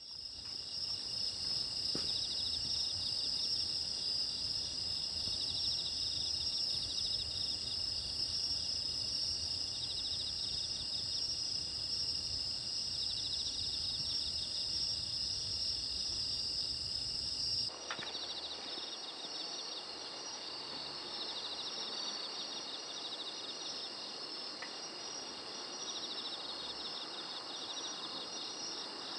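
A chorus of autumn insects (crickets and their kin) calling at night: several overlapping high-pitched steady trills and rapidly pulsed chirps. A low rumble underneath stops abruptly about 18 seconds in while the chorus carries on.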